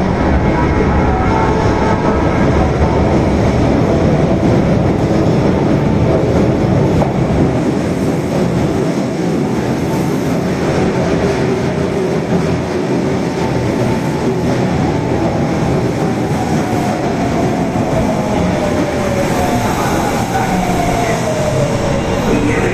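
Osaka Metro Tanimachi Line subway train running, a steady rumble of wheels and motors, with a whine falling in pitch over the last several seconds.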